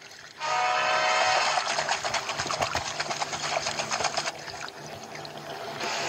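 Rushing, splashing river water mixed with an orchestral cartoon score. A held chord comes first, then a dense spell of splashing that thins out after about four seconds and comes back in a short burst near the end.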